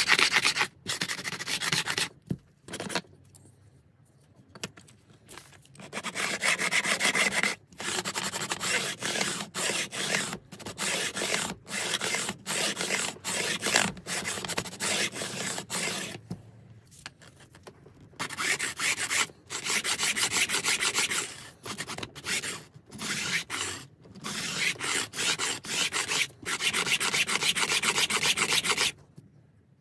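Fret bevel file in a wooden block stroked back and forth along the edge of a guitar fretboard, rasping off the sharp ends of newly installed frets and bevelling them. The repeated strokes come in runs, with short pauses about 3 to 5 seconds in and about 17 seconds in.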